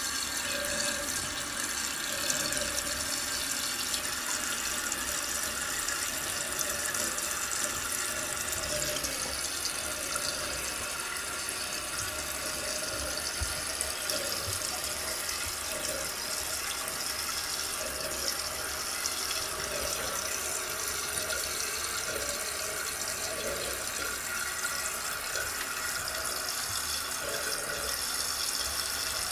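Toilet tank refilling after a flush: water runs steadily through a newly installed fill valve into the tank of a Toto one-piece toilet.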